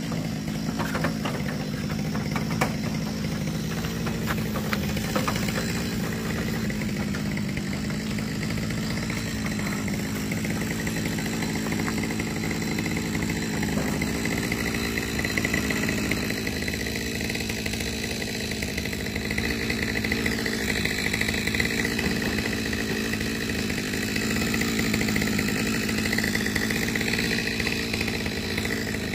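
Two-stroke chainsaw engine idling steadily, not cutting, with a few light knocks in the first few seconds.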